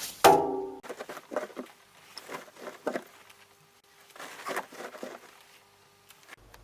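Whirlpool washing machine being handled: a loud knock with a short ringing tone near the start, then a series of irregular clicks and knocks, with a faint steady tone under the later ones.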